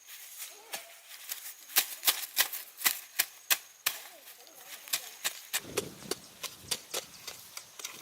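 A quick series of sharp knocks or taps, about three a second, loudest from about two to four seconds in, then lighter and more scattered.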